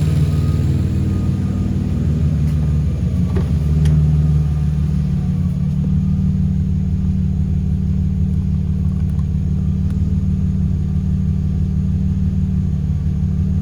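Nissan VQ-series V6 engine idling steadily, with a brief swell about four seconds in. The exhaust collector joint has just been resealed with a new gasket, and the owner calls the engine real healthy.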